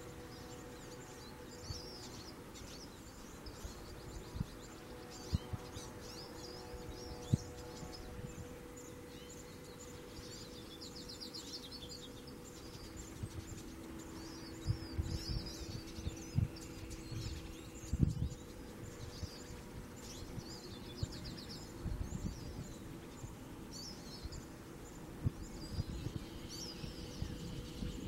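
Male hooded siskin singing a long, rambling run of high twittering chirps and trills, with a steady low hum underneath and a few low thumps.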